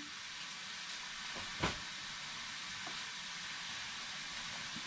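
Steak strips with peppers and onions sizzling in a frying pan: a steady hiss, with one soft knock about a second and a half in.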